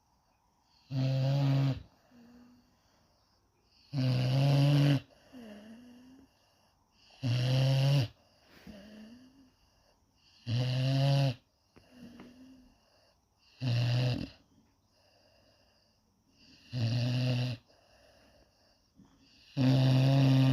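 Cane Corso dog snoring in its sleep: seven loud, rumbling snores, each under a second long, come about every three seconds, with a softer, short breath sound between each.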